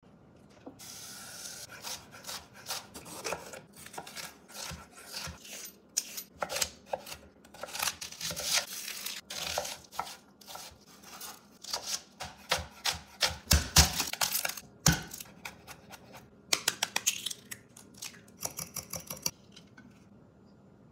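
A chef's knife chopping vegetables on a wooden cutting board: a long run of irregular knocks and slicing strokes with handling of the produce, including quick runs of chops, stopping about nineteen seconds in.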